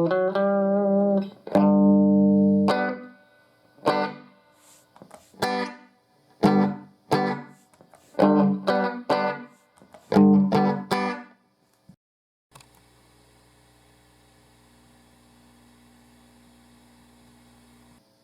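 Electric guitar played through a Fender tube combo amp: a held chord, then short, separate chords and notes with gaps between them, stopping about eleven seconds in. After that only the amp's faint steady hum and hiss remain.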